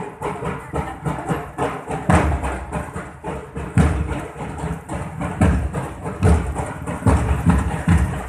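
Irregular, uneven low thumps and rumbles hitting the microphone one or two times a second over a steady street-noise bed.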